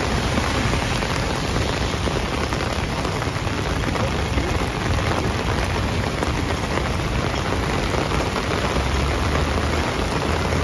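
Steady rain falling on wet pavement as an even hiss, with a low rumble underneath.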